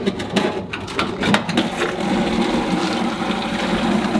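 A few knocks and clatters, then a machine starts a steady low hum about two seconds in and keeps running.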